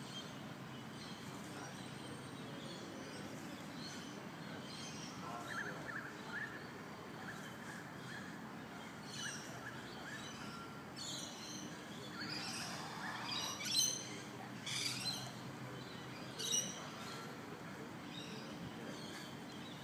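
Birds chirping and calling over steady outdoor background noise, in short scattered calls with a louder run of calls about two-thirds of the way through.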